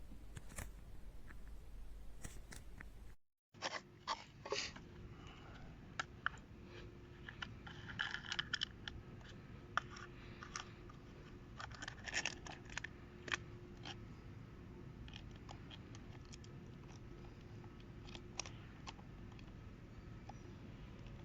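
Faint crinkling, rustling and scattered clicks of things being handled, after a brief dropout about three seconds in.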